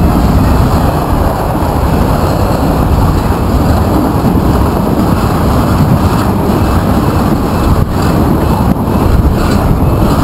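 Class 66 diesel locomotive 66031 passing close at speed, followed by its train of loaded steel-coil wagons rolling by, a loud, steady rumble throughout.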